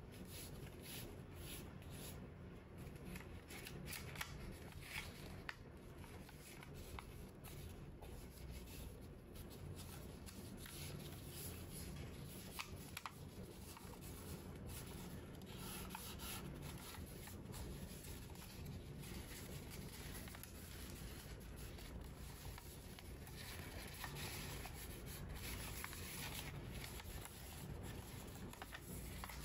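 Origami paper being folded and creased by hand: soft rustling and crinkling, with many small scattered clicks as the sheet is handled.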